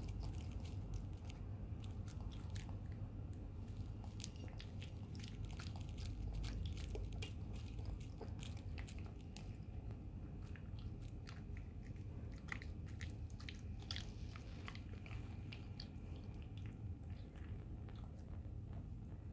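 A small dog eating a soft mash of flaked salmon from a plate: steady chewing and biting with many small, quick clicks throughout, over a low steady hum.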